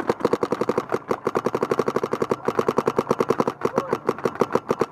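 Paintball marker firing in a rapid, steady stream of shots, about ten a second, as cover fire.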